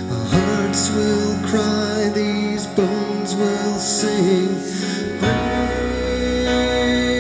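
A man singing a worship song to his own electric keyboard accompaniment. About five seconds in, the sung line gives way to a long held chord with a deeper bass.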